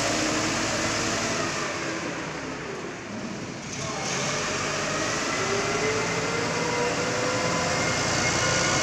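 TCM diesel forklift engine running as the truck drives about. It is quieter about two to four seconds in, and the engine note rises through the second half as the forklift accelerates.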